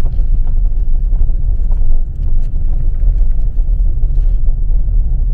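Steady low rumble of a truck driving slowly, heard from inside the cab: engine and road noise.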